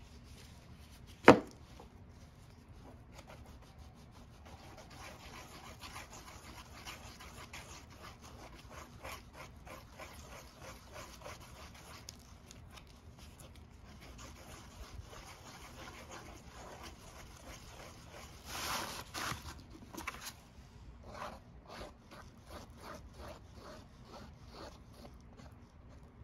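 Body filler being mixed with hardener on a cardboard board: a spreader tool scraping and slapping through the paste in a fast run of short strokes, busiest about two-thirds of the way through. One sharp tap about a second in, louder than the rest.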